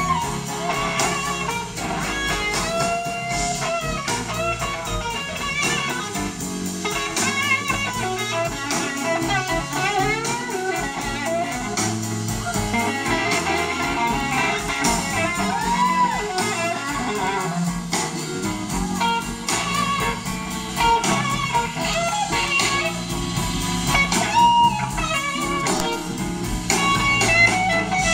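Live blues-rock band playing an instrumental passage: an electric guitar lead with bending, gliding notes over rhythm guitar, bass and drums.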